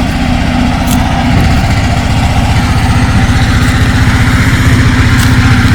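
Generator engine running steadily and loudly, a rapid even firing pulse over a low hum, growing a little heavier about a second and a half in.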